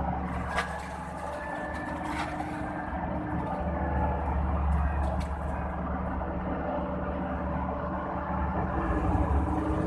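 Hitachi long-arm excavator's diesel engine running steadily while digging, with a few brief clicks or knocks over it.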